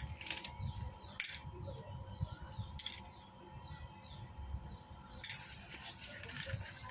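A few sharp, hard clicks: one just over a second in, another near three seconds, then a short rattle of clicks a little after five seconds.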